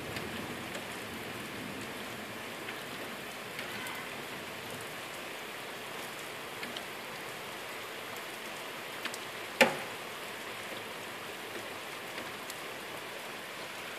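Steady rain during a thunderstorm: a continuous hiss with scattered drip ticks, and one sharp tap about ten seconds in.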